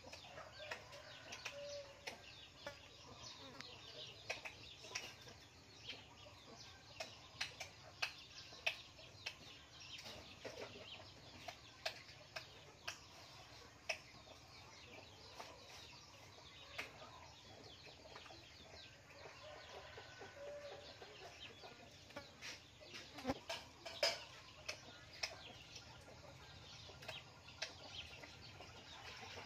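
Rabbits chewing and rustling dry hay: irregular crisp clicks and crunches, several a second at times, with a few faint short calls in the background.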